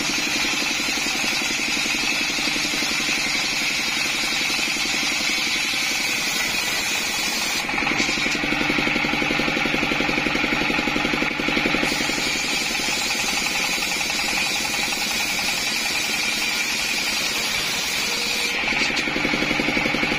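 Single-cylinder diesel engine running steadily and driving a large circular saw blade. The blade bites into coconut-trunk wood, rising in level and hiss from about 8 to 12 seconds in and again near the end.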